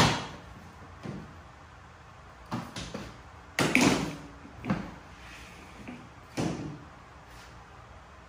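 Hollow knocks and scrapes from handling a length of ABS pipe and a can of ABS cement with its dauber on a workbench. A sharp knock at the very start is the loudest; a run of shorter knocks and scrapes follows, with a louder cluster about three and a half seconds in.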